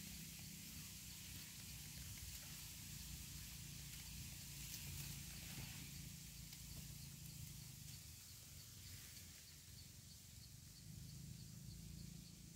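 Faint outdoor ambience: a low rumble of wind or handling on the microphone, with a faint high-pitched ticking that repeats a few times a second. The marching termites themselves are not heard.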